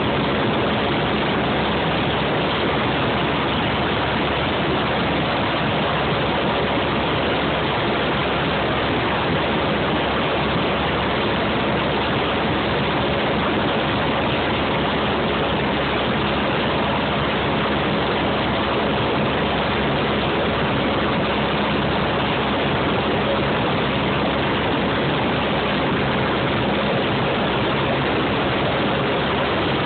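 Steady drone inside the cabin of a high-wing light aircraft in cruise flight: the piston engine and propeller hum under a constant rush of airflow, with no change in pitch or level.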